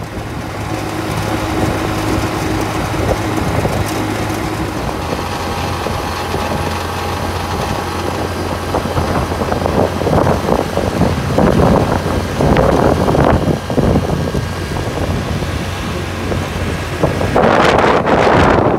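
A motor vehicle driving along a road: steady engine hum and road noise, with wind buffeting the microphone in gusts a little past halfway and again near the end.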